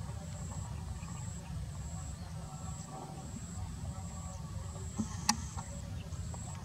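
Distant low rumble of a Boeing 737's twin jet engines at low taxi thrust as the airliner turns slowly on the runway, with a high insect trill in short pulses over it. A single sharp click about five seconds in.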